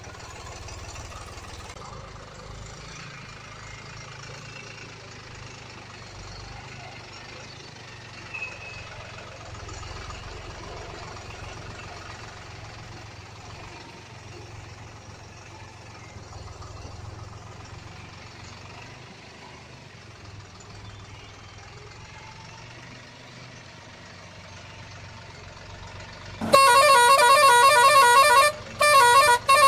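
Low, steady background noise, then near the end a loud, wavering vehicle-horn honk that breaks off twice in short pulses.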